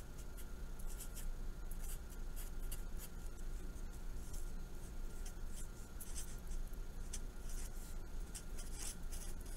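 Marker pen scratching on paper in many short strokes as symbols and words are written out, over a faint steady hum.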